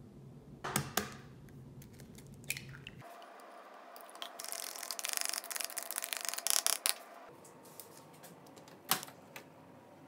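A fork beating eggs in a plastic container: a fast run of light clicking and scraping for about three seconds in the middle, with a few separate knocks before and after.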